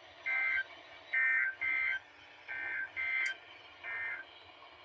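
Emergency Alert System SAME data bursts from two alert receivers playing about half a second apart: six short two-tone digital warbles, three from each unit, short enough to be the end-of-message code that closes the required weekly test.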